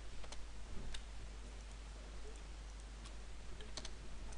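About five faint, irregularly spaced computer mouse clicks over a steady low hum and hiss.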